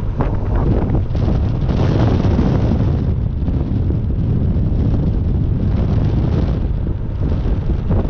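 Wind buffeting the microphone in an open-topped car on the move, over the steady running of a 1972 Porsche 914-6's 2.7-litre twin-plug flat-six engine as it cruises.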